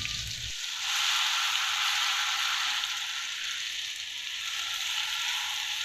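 Batter-coated cauliflower florets deep-frying in hot oil in a pan, a steady sizzle that grows louder about a second in.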